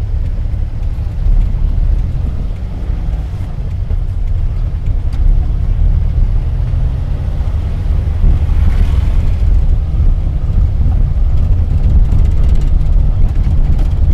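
1984 Daihatsu Hijet 1000's engine running as the van drives along, heard from inside the cab as a steady low rumble that grows a little louder from about eight seconds in.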